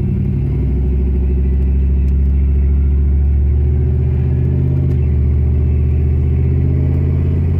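LS V8 engine of a swapped Chevrolet S10 pickup running steadily under light throttle while driving, heard from inside the cab as a steady low drone.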